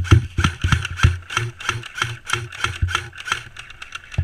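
Quick, even thumps with a rattle, about four a second, alternating strong and weak: running footsteps jolting the gear that is being carried.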